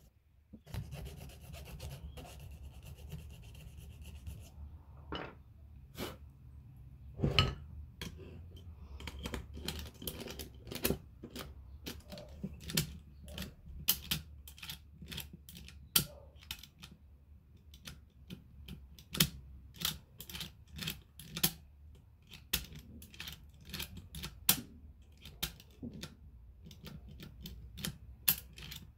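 A small metal file rasps on the bit of a brass key for a few seconds. Then the key is worked back and forth in an old mortise lock, and its levers and bolt give many sharp metallic clicks and knocks. The lock still catches: the reshaped key has not cured the sticking.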